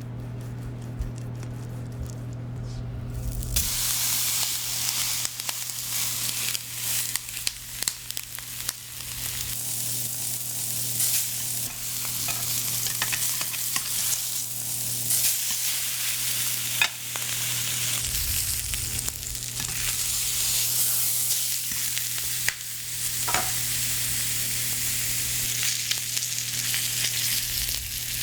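Ribeye steak sizzling on a hot cast iron grill pan, a dense hiss with scattered crackles and pops that starts suddenly about three seconds in. A steady low hum runs underneath.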